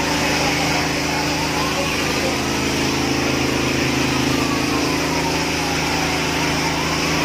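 Fire truck engine running steadily, with a steady hiss over it.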